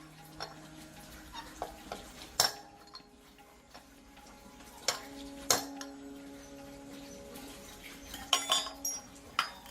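Metal objects clinking and knocking: a handful of sharp, irregular strikes, some leaving a short ringing tone.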